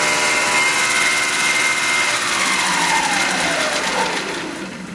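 Spindle motor and chuck of a Tormach PCNC 1100 set up as a Duality lathe, running at speed and then spinning down as the CNC cycle ends. Its whine falls in pitch from about two seconds in and fades toward the end.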